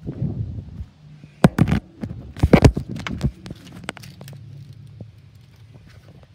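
Footsteps and several sharp knocks from someone moving about an abandoned railcar, loudest between about one and a half and three and a half seconds in, then lighter clicks over a faint steady low hum.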